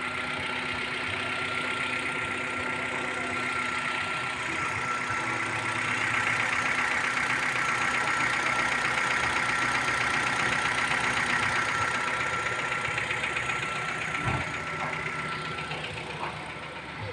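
Car engine running steadily with a thin high whine over it. It swells louder partway through, then eases off.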